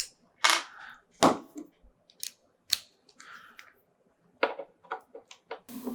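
Small clicks and scrapes of a precision screwdriver and its bits being handled, with a quick run of light ticks about four and a half seconds in.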